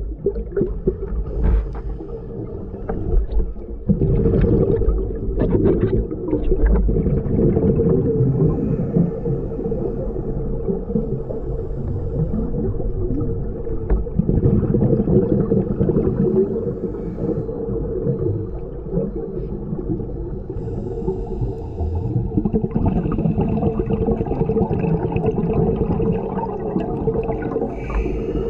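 Muffled underwater noise heard through a camera's housing, with the rumble and gurgle of a scuba diver's exhaled bubbles swelling every several seconds.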